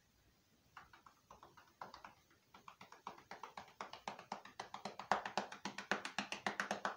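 A rapid series of sharp taps, several a second, starting about a second in and growing louder and quicker, then stopping suddenly near the end.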